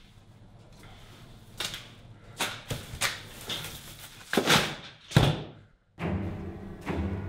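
A run of separate thuds and swishes, the loudest two about four and a half and five seconds in, as things are handled and thrown about. After a brief cut to silence, music with low steady tones starts about six seconds in.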